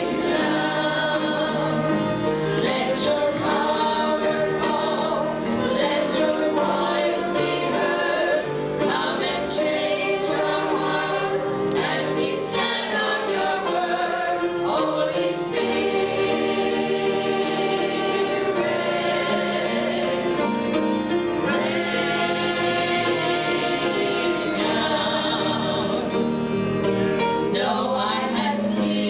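Women's gospel praise team singing together into microphones, a slow worship song in several voices.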